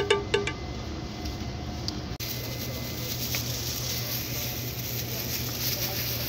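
Steady background ambience of a produce market: an even hiss with a low hum, changing abruptly at a cut about two seconds in. The last plucked music notes fade right at the start.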